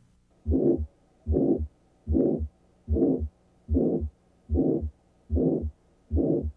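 Carotid bruit heard through a stethoscope on the neck: a whooshing, murmur-like sound with each heartbeat, eight beats at a steady pace, each with short low thumps underneath. A bruit suggests narrowing of the carotid artery.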